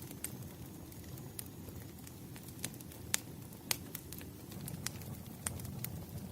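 Wood fire burning, a steady low rumble with sharp crackling pops from the logs at irregular intervals, the strongest pops near the middle.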